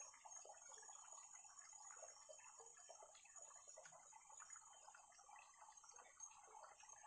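Faint forest ambience: a steady high-pitched insect drone, over soft irregular rustling and crackling as fresh leaves and herbs are pressed by hand into a woven basket.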